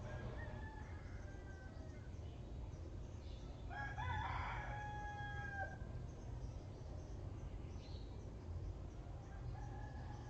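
Rooster crowing three times, the middle crow the loudest, over a steady low background rumble.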